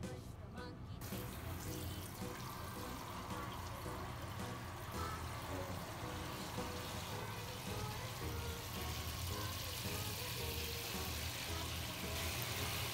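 Handheld shower head spraying water onto a dog's fur in a plastic basin, a steady hiss of running water that starts suddenly about a second in.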